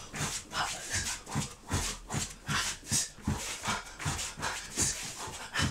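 A man panting hard in a quick, even rhythm, about two to three breaths a second, while doing mountain climbers, with a soft thud of his feet on the rubber floor mat at each stride.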